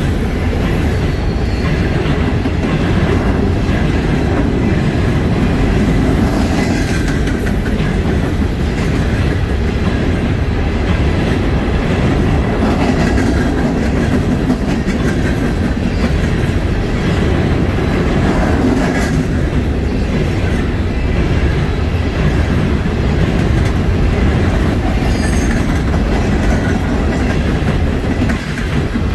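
Freight train of open-top coal hopper cars rolling steadily past, a continuous rumble with the steel wheels clacking over the rail joints.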